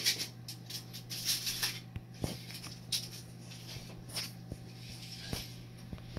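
Handling noises: light rustling with scattered short clicks and taps as a tape measure and PVC pipes are handled, over a steady low hum.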